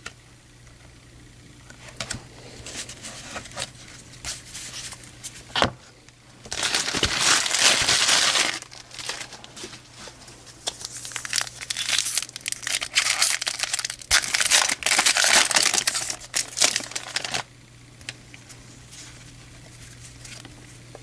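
Foil wrappers of baseball card packs crinkling and tearing as the packs are ripped open. Scattered light crackles give way to a loud stretch of crinkling about six seconds in, then a longer one from about nine to seventeen seconds, and it goes quieter near the end.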